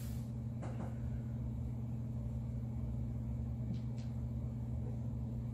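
Steady low hum with a few faint clicks: one about half a second in and two close together around four seconds in.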